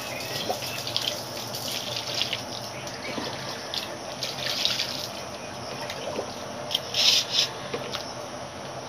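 Wet, splashy handling of raw pangas fish pieces as they are picked up off a banana leaf and laid into a steel bowl, with a louder burst of splashy sounds about seven seconds in.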